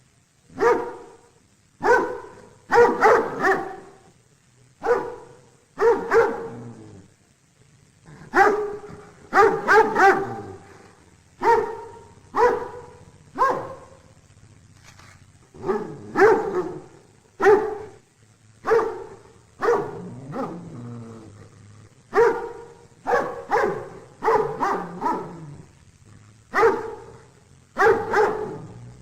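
A dog barking repeatedly: sharp single barks and quick runs of two or three, about one every second, with a few drawn-out lower growl-like notes about two thirds of the way through.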